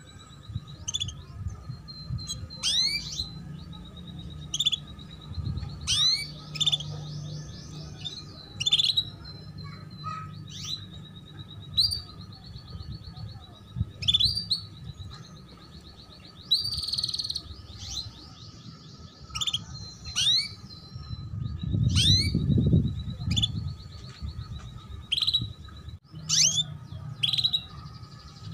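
Female canary repeating short, sharp 'cuit' chirps about once a second, with buzzy trills in between. A steady low hum runs underneath, and a low rumble swells about two-thirds of the way through.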